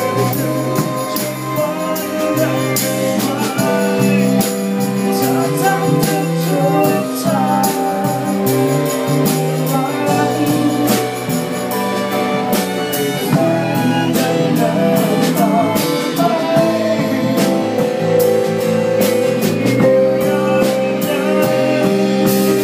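A rock band with a string section playing a song live: drum kit, bass guitar, electric and acoustic guitars, with violins and cello holding sustained notes. A man sings over it.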